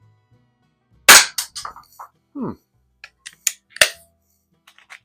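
A Webley Nemesis SSP single-stroke pneumatic target pistol fires once about a second in, a sharp crack followed by quick smaller clicks and clacks of the pellet striking. A few more sharp clicks follow, the strongest near the four-second mark with a brief metallic ring after it.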